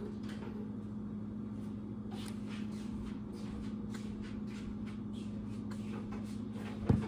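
Steady low hum in a kitchen, with faint clicks and rustles of a plastic sauce bottle being handled and squeezed, and a sharper knock near the end.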